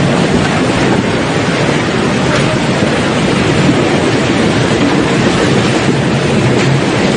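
Muddy floodwater rushing down a street, carrying sticks and debris: a loud, steady rush of water.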